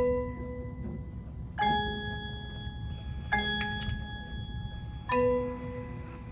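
Tubular bells (chimes) struck one note at a time: four strikes about 1.7 seconds apart, alternating between a higher and a slightly lower note, each ringing on and fading before the next.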